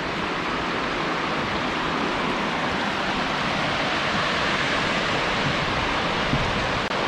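Small mountain creek running, a steady, even rush of water.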